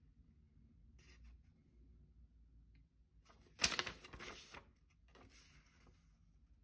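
Folded paper user manual rustling as it is handled and unfolded, with one short louder crackle of paper about three and a half seconds in and faint handling rustles otherwise.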